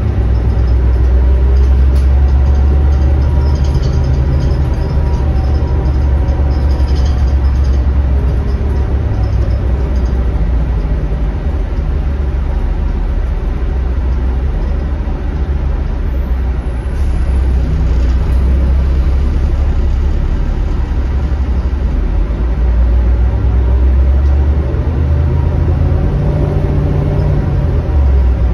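Inside the cabin of a Denning Phoenix low-floor bus with a Caterpillar diesel engine under way: a deep, steady engine drone with road noise. The drone eases for a while in the middle and strengthens again near the end.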